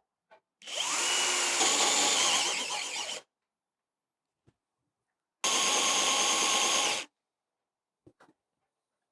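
Hand-held drill boring into a beech table top with a blunt bit, in two runs: a longer one that whines up to speed, then after a pause a shorter one that starts and stops abruptly.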